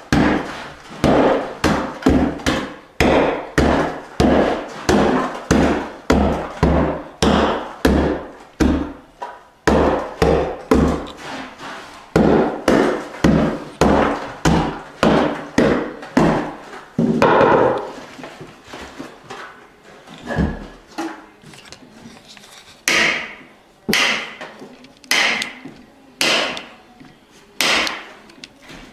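Hammer blows breaking up soft, water-damaged particle-board subfloor along the base of a wall, about two strikes a second. After about 17 seconds the blows slow and become sharper and brighter as a hammer drives a chisel into the gap.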